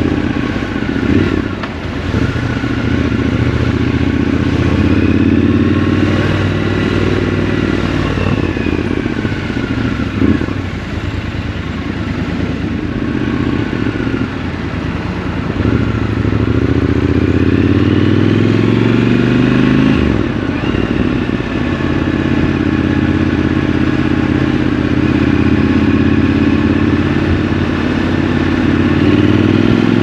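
Triumph Scrambler 1200 XC's parallel-twin engine running under way. It rises in pitch as it accelerates twice, drops back when the throttle closes about twenty seconds in, then holds a steady cruise.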